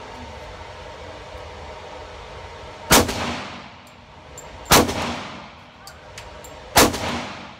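Three pistol shots from a Glock 23 in .40 caliber, about two seconds apart, each followed by a short echoing decay. All three rounds of cheap ammunition fire, with no misfire.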